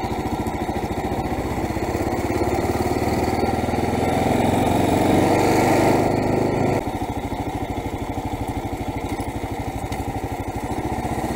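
Kawasaki KLR 650's single-cylinder engine running under way, louder under throttle for a few seconds, then dropping off abruptly about seven seconds in as the throttle is rolled off, and running on lower and steady as the bike slows.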